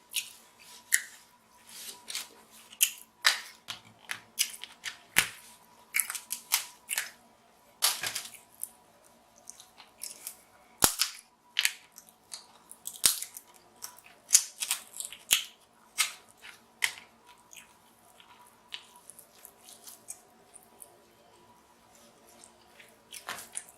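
King crab legs being eaten up close: a string of sharp, irregular snaps and cracks of shell with chewing, thinning out after about seventeen seconds.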